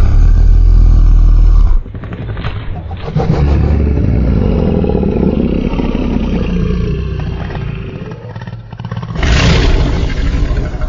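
A series of Allosaurus roar sound effects: a short, very loud deep roar, then a longer roar lasting about five seconds that slowly fades, and another loud roar starting near the end.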